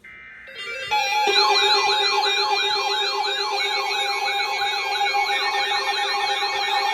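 Electronic emergency alert tone. A faint steady tone is followed, about a second in, by a loud siren-like warble that rises and falls about three times a second over steady held tones.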